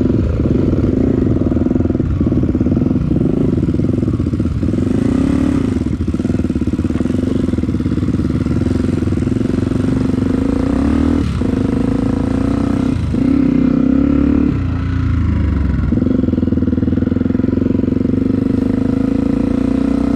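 Motorcycle engine running steadily under way, heard loud from the rider's seat. The engine note drops briefly several times, around two, three and four and a half seconds in and again near eleven, thirteen and fifteen seconds.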